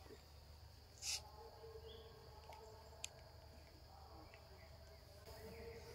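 Faint steady high-pitched chirring of insects, crickets or cicadas, in forest undergrowth, with one short sharp noise about a second in and a single click around three seconds in.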